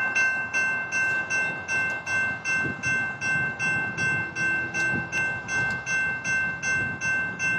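Railroad crossing's General Signals Type 2 electronic bells ringing, about two strikes a second, as the crossing signals activate and the gates lower.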